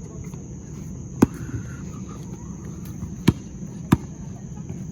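Basketball bouncing on a hard court: three sharp bounces, about a second in, about three seconds in and just after, over a steady high-pitched drone and low background noise.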